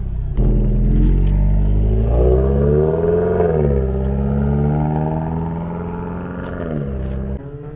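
Toyota GR86's flat-four boxer engine through an AWE Touring exhaust as the car accelerates past; the exhaust note climbs to a peak about three seconds in, then falls away, and cuts off suddenly near the end.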